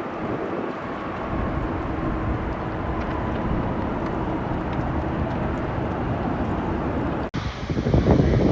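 Jet airliner engines making a steady rush of noise, with wind buffeting the microphone. A little over seven seconds in, the sound cuts off abruptly and gives way to a louder, rougher rush.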